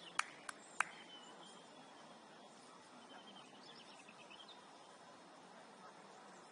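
Faint steady outdoor background noise on an open floodlit pitch, with three sharp clicks in the first second.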